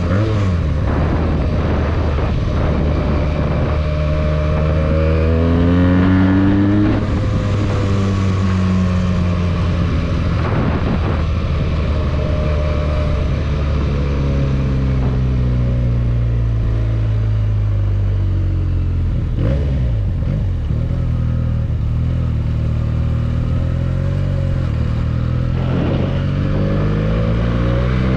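Benelli 302S parallel-twin motorcycle engine on the move: it revs up in the first seconds, then its pitch eases slowly down for a long stretch while rolling off, and it revs up again near the end, with wind and road noise underneath.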